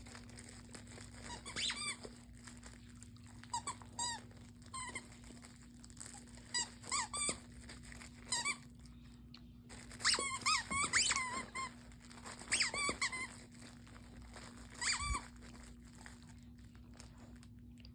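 Squeaker in a dog's stuffed toy being chewed and squeezed: short, pitched squeaks in irregular bursts, with brief pauses between them, stopping about fifteen seconds in.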